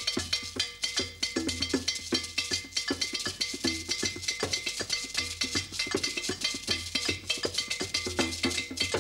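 West African double iron bell, two bells forged together, struck with a stick in a repeating bell pattern, with a rope-tuned hand drum and a netted gourd shaker playing along in a steady rhythm.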